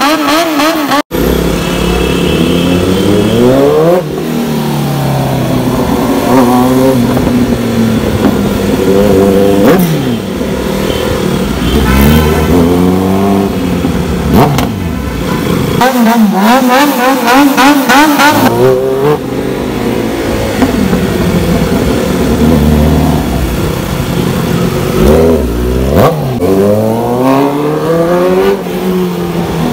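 Kawasaki Z900 superbike's inline-four engine revving hard again and again in traffic, the pitch sweeping up and falling back every few seconds. The sound cuts out for an instant about a second in.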